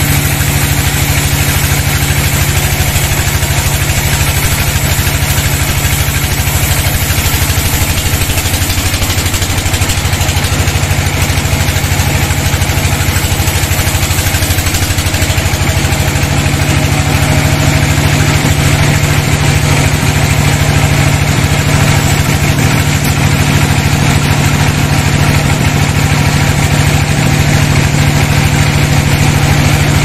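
Sawmill band saw running and ripping lengthwise through a large log: a loud, steady machine hum with a hiss of the blade cutting the wood.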